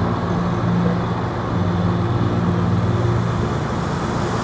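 Road traffic noise with a steady low engine hum underneath.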